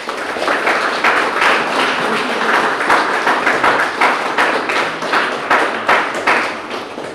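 Audience applauding: a dense patter of many hands clapping that begins to die away near the end.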